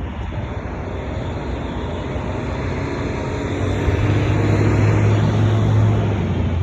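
Street traffic noise. A motor vehicle's low engine hum grows louder about four seconds in and eases off near the end, as the vehicle passes.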